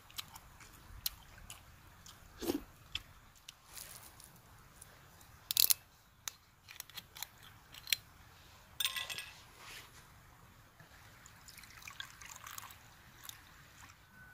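Someone eating: scattered short crunching and chewing sounds with clicks of tableware, the loudest crunch about five seconds in and a brief clink about nine seconds in.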